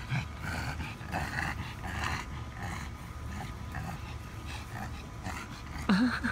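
Puppy and dog play-fighting, with rough growling in the first couple of seconds and two short yelps near the end.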